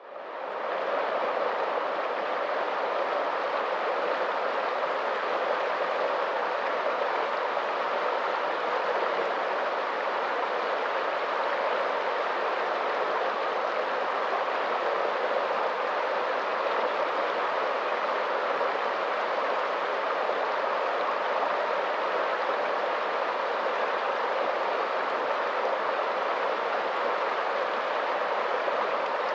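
Swollen, muddy river rushing through rapids: a steady, unbroken roar of water that fades in over the first second.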